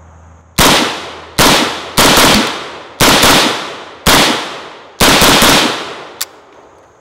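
Molot VEPR semi-automatic rifle in 5.45x39 firing a string of single shots, roughly one a second, each followed by a decaying ring. A lighter sharp click comes about six seconds in.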